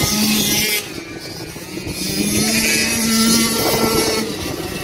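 Several racing cars' engines running hard as they lap a short oval, a steady droning engine note with a wash of track noise. The sound dips briefly about a second in, then grows louder through the middle as cars pass close.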